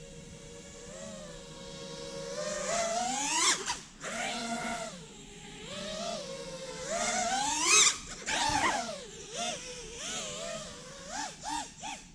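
5-inch FPV quadcopter's brushless motors and propellers whining. The pitch rises steeply twice as the throttle is punched, each time followed by a sudden cut, as in a power loop. Several short throttle blips follow near the end.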